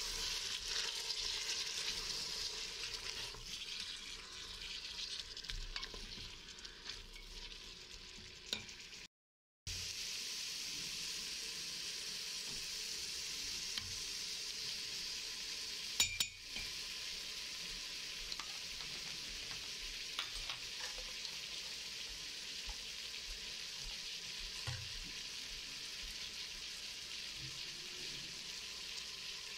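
Sliced onions and meat sizzling in oil in an Instant Pot's stainless steel inner pot, stirred now and then with a wooden spoon. The steady hiss breaks off for about half a second a third of the way in, then resumes, with one sharp tap about halfway.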